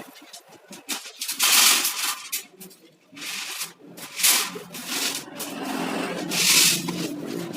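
Steel reinforcing bars being handled and stacked: repeated bursts of scraping and rubbing with scattered clinks, over a low hum.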